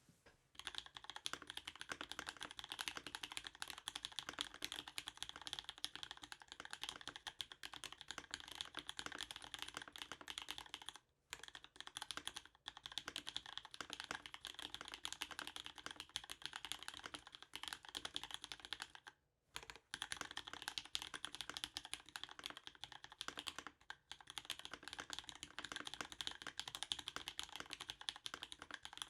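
Steady fast typing on a custom MEME 65% gasket-mount mechanical keyboard with an aluminium plate, GMK Carbon keycaps and lubed new-old-stock vintage Cherry MX Black linear switches on 67 g springs: a dense run of key clacks with a few brief pauses.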